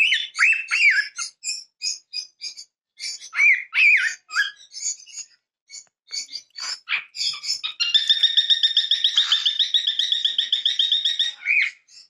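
Cockatiel singing: short whistled notes that rise and fall, mixed with chirps. From about eight seconds in comes a fast, even trill of rapidly repeated notes that lasts over three seconds.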